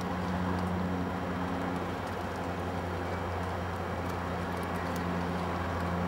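Steady low mechanical hum, like an engine running nearby, over a faint outdoor background, with a few faint clicks.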